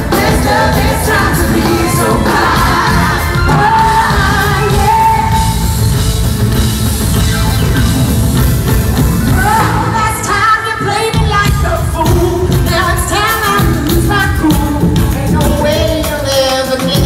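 Live pop-rock band playing loudly, with a female lead vocal singing over drums, bass and guitars.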